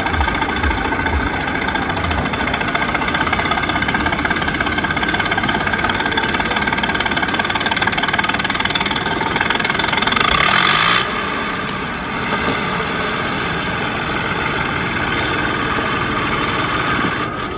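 Heavy vehicle's engine running steadily, growing louder briefly about ten seconds in and then dropping back.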